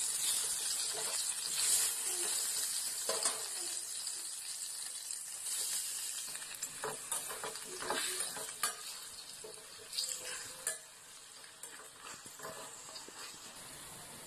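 Raw chicken pieces sizzling as they go into hot oil in a stainless steel pan, then stirred with a spoon that knocks against the pan several times. The sizzle dies down over the last few seconds.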